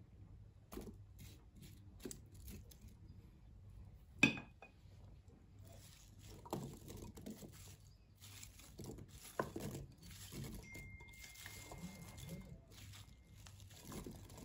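Diced apple pieces tumbling into a dough-lined cake tin as a spatula scrapes them out of a glass bowl: scattered soft knocks and scrapes, with one sharper knock about four seconds in.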